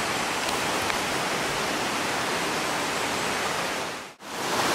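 Steady rushing of a rocky mountain creek, heard as an even hiss. It cuts out for a moment near the end and comes back a little louder.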